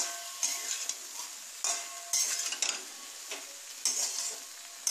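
Metal spatula stirring and scraping chunks of fried vegetables around a metal kadai in uneven strokes, about one every half second to second, with a soft sizzle of frying between the strokes.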